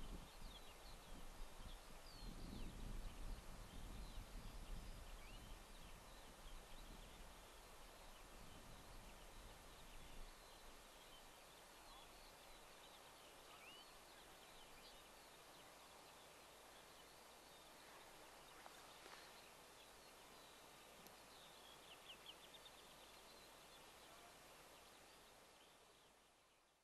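Faint birdsong across open fields: scattered small chirps and short trills from several birds over a steady hiss, with a low rumble during the first few seconds. The sound fades out at the very end.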